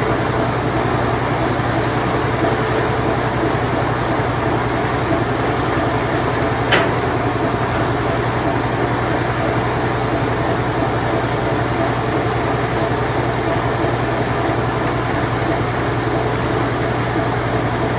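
Vintage Whirlpool Imperial Clean Touch washing machine running its spin cycle: a steady low hum with a continuous rushing whir over it. There is one short click about seven seconds in.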